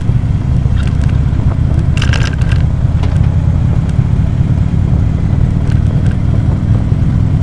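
2014 Harley-Davidson Ultra Classic Limited's V-twin engine running steadily at cruising speed, a low constant drone with wind and road noise, heard from a helmet-mounted microphone. A brief higher-pitched rustle comes about two seconds in.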